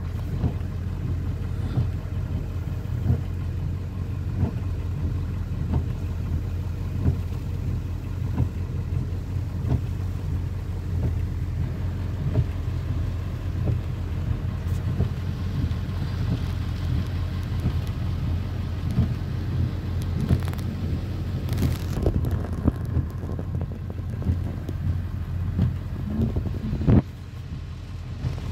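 Steady low rumble of a vehicle's running engine heard from inside the cabin, with frequent light taps of rain on the roof and windshield.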